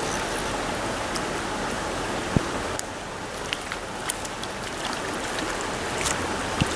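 Steady rush of a flowing trout stream, with one sharp knock about two and a half seconds in and a scatter of short clicks and splashes in the second half.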